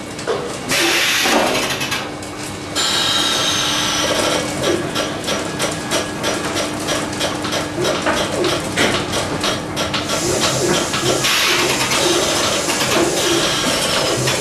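Robotic dairy milking machine at work under a cow: air hissing in bursts, rapid mechanical clicking and a steady hum. The hum stops about two-thirds of the way through, and a louder steady hiss carries on to the end.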